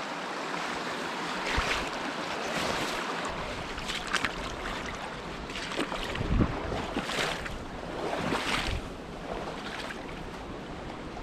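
Fast, broken river water rushing steadily, with wind gusting on the microphone now and then.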